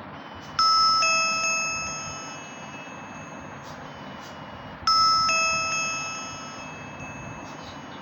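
Nokia mobile phone ringtone played through the phone's loudspeaker: a two-note doorbell-like chime that sounds twice, about four seconds apart, each time ringing out and fading.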